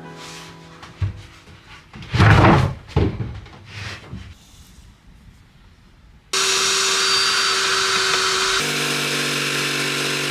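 A few wooden knocks and thuds as plywood pieces are handled, then about six seconds in an electric power sander starts abruptly and runs steadily on the plywood, its hum changing tone a couple of seconds later.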